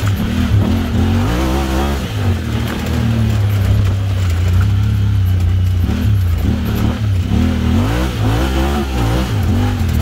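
Honda Talon X side-by-side's parallel-twin engine through an aftermarket Evo Performance exhaust, on and off the throttle while riding. Its pitch rises and falls in quick swings about a second in and again through the second half, holding steadier in between.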